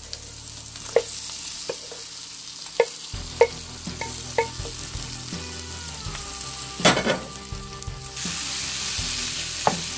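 Cooked shrimp tipped into a pan of onions and spices frying in coconut oil, sizzling steadily, with several sharp knocks of utensils against the pan and a loud clatter about seven seconds in. The sizzle grows louder about eight seconds in.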